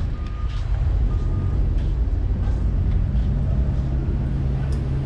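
Steady low rumble and hum of a ship's machinery and ventilation, the hum settling into a steady drone about three seconds in. Two short faint beeps in the first second and a half.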